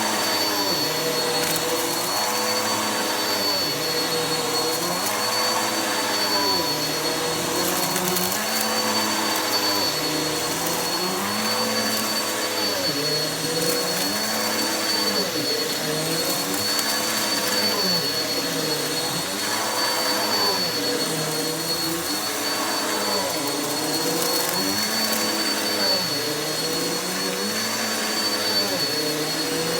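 Vacuum cleaner running on carpet with a steady high whine. Its lower tone rises and falls about every two seconds.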